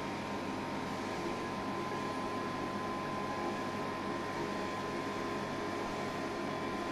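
Steady mechanical hum and hiss with a constant high-pitched tone, unchanging throughout.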